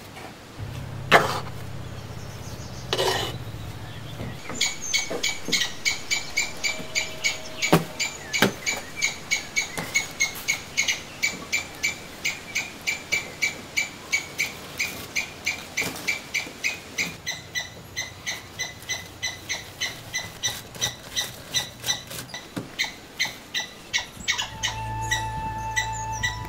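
Short high-pitched calls repeated evenly, about three a second, starting about five seconds in and going on to the end. The first seconds hold a few sharp knocks, and near the end background music comes in under the calls.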